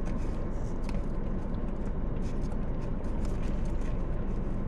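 Steady low rumble inside a parked car with its engine idling, with a few faint light clicks and rustles from hands handling a cup and things in a lap.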